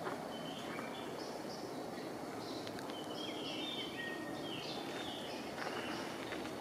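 Birds chirping and calling in short whistled notes, scattered throughout, over a steady outdoor background hush.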